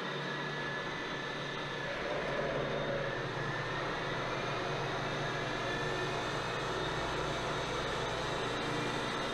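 Ex-Cell-O 602 ram turret knee mill running under power, its motor and spindle drive making a steady mechanical hum. About two seconds in the sound shifts and grows a little louder, with a low hum coming in and a faint rising whine.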